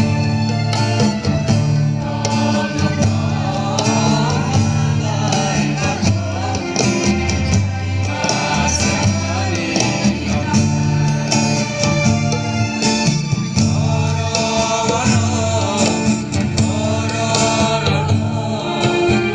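A mixed group of men and women singing a Kokborok song together into microphones, with acoustic guitar and a steady bass line under the voices, amplified through a stage sound system.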